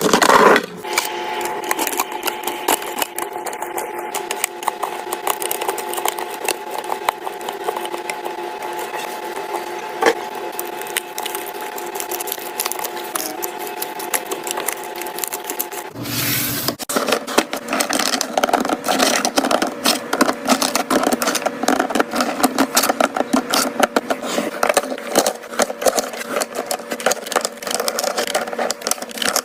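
Rapid clicking and rattling of food containers and packaging being handled during fridge restocking, over a steady hum. The sound changes abruptly about halfway through.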